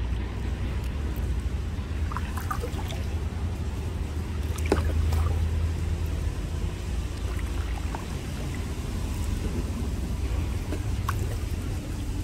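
Kayak being paddled on a river: small splashes and drips of water off the paddle over a steady low rumble.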